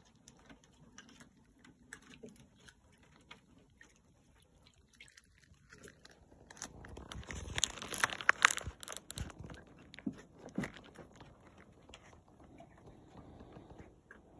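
Raccoons moving about on a plastic kiddie pool and a wooden deck: scattered light clicks and scuffs. From about six and a half to nine and a half seconds in there is a louder stretch of rustling with sharp knocks, and a few softer knocks follow.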